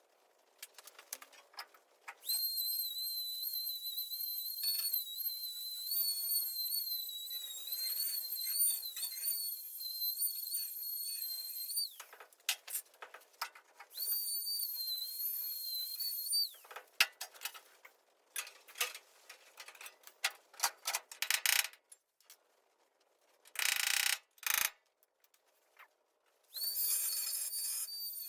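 Angle grinder whining at high speed while grinding on sheet-metal welds, its pitch dipping slightly as it bears on the metal. The grinder runs for about ten seconds, then twice more in shorter runs, with rough scraping crackle between runs and two short harsh bursts a little after the middle.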